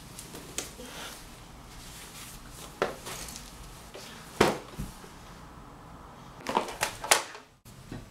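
A handful of short, sharp knocks and thuds as objects are handled and set down on a bed, the last three coming in quick succession, over a steady background hiss.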